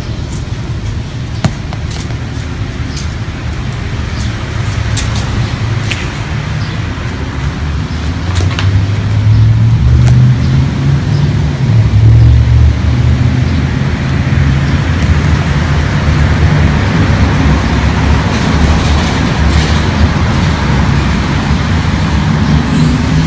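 Low, steady rumble of a motor vehicle's engine, growing louder toward the middle, with its pitch rising near the end as it speeds up.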